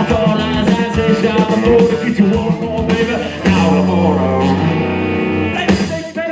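Live rock and roll played by a guitar-and-drums trio: two distorted electric guitars and a drum kit at full volume. Held guitar chords come in about halfway, and the band drops out briefly near the end.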